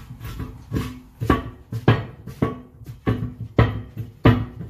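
Heavy truck tire, a 275/70R22.5, being shoved down by hand onto a steel 22.5-inch truck wheel. It thumps against the rim about every half second, and each thump leaves a short metallic ring from the wheel. This is a stretch fitment, forcing the tire onto an 11.75-inch-wide wheel where 8.25 inches is recommended.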